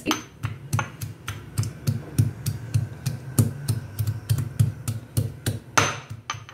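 Pestle pounding ginger, garlic and green chillies in a black stone mortar: a steady run of knocks, about three a second.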